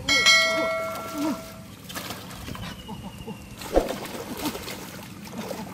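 A bright, bell-like ringing sound that starts suddenly and fades out over about a second and a half, followed by lower background noise with short chirps and a single click near the end.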